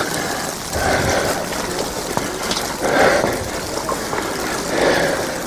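Wet snow and sleet falling steadily on an umbrella held over the microphone, with wind, making an even hiss with soft swells about every two seconds.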